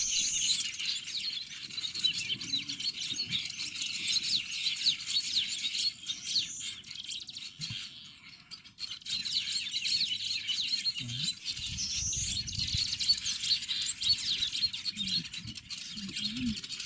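A colony of weaver birds chattering continuously, a dense stream of fast, high chirps and short twittering calls from many birds at once, typical of weavers busy building their nests; the chorus thins briefly about halfway through.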